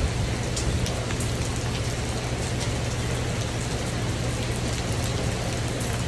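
Steady rain falling on a tin roof: an even, dense hiss with a low drumming undertone and scattered sharper individual drops.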